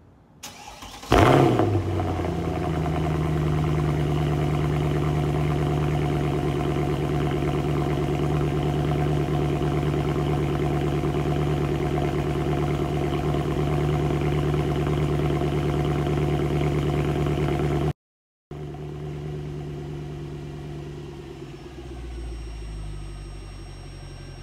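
Mercedes-Benz C63 AMG's 6.2-litre M156 V8 starting about a second in with a sharp, loud flare, then idling steadily. After a brief break the idle is heard again, quieter.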